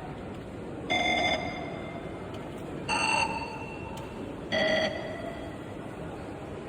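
Very high-speed Morse code callsigns from the RUFZXP copying program, played as three short bursts of beeping, each callsign sent in about half a second, roughly every one and a half to two seconds, over steady background noise.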